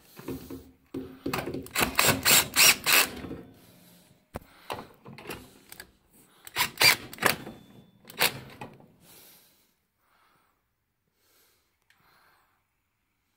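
Metabo BS 18 Li cordless drill-driver working screws on a gas burner's metal housing. It makes a run of sharp, evenly spaced loud clicks for about two seconds, then a second run about seven seconds in.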